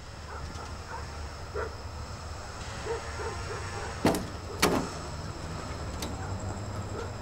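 Two sharp knocks about half a second apart as a makeshift shelter's wooden panel door is pushed and shifted, over a steady low hum of distant city traffic.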